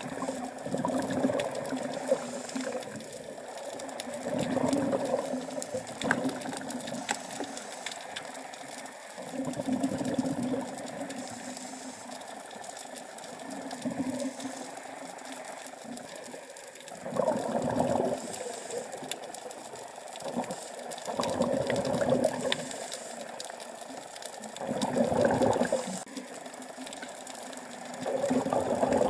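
Scuba diver's breathing through a regulator underwater: exhaled bubbles surge out in bursts about every three to four seconds, with a steady hiss and faint clicking between breaths.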